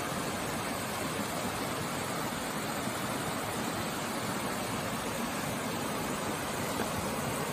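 Creek water rushing over low rock ledges in small cascades: a steady, even rush.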